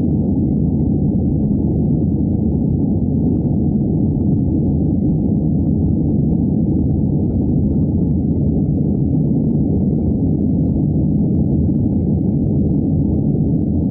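Airbus A320 cabin noise in flight, heard from a window seat: a steady low rumble of the engines and rushing air.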